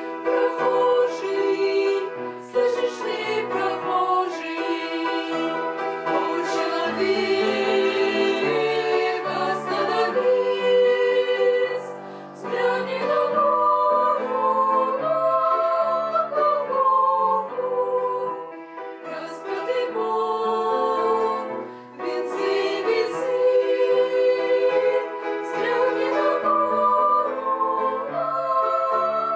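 Several female voices singing a song together in harmony, holding long notes that move from pitch to pitch.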